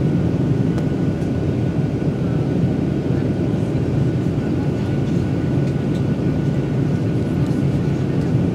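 Steady engine and airflow noise of a Boeing 737-900ER airliner: a constant low rush with a faint steady whine above it.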